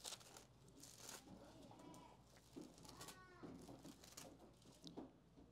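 Near silence: room tone, with a few faint rustles and a faint voice in the background.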